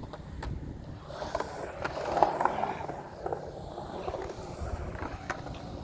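Skateboard wheels rolling on concrete, with sharp clacks and a louder scrape about two seconds in. The sound is a run at a frontside double truck grind on the wall of a skate bowl.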